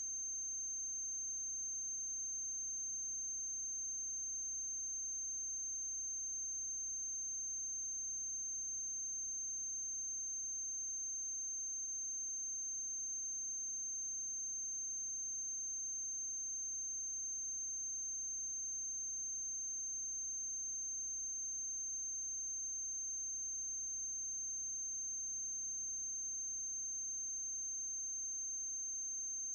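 Steady high-pitched electrical whine over a faint low hum and hiss, unchanging throughout: noise from the film-to-video transfer on the soundtrack of a silent film.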